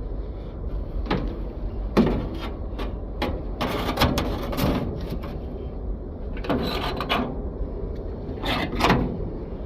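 Rusty hinge on a Studebaker being swung back and forth, creaking and grinding in about five separate strokes. It has been loosened with rust remover but is still gritty with rust.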